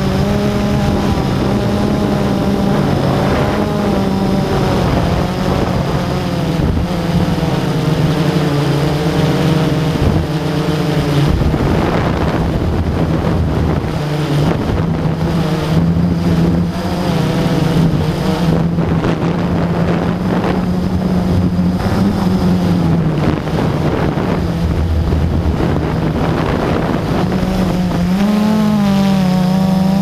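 Drone's electric motors and propellers humming steadily right at the camera, the pitch wavering a little as the drone manoeuvres and briefly rising about two seconds before the end.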